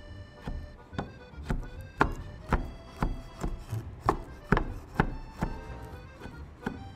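Chef's knife chopping prunes on a wooden cutting board, sharp strokes about two a second, over background music with held notes.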